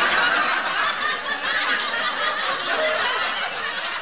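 Canned laughter: a sitcom-style laugh track of many people laughing together, edited in as a comic sound effect.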